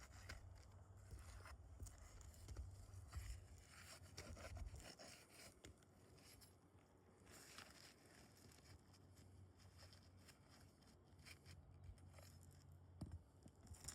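Near silence, with faint scattered scrapes and rustles and a low rumble during the first few seconds.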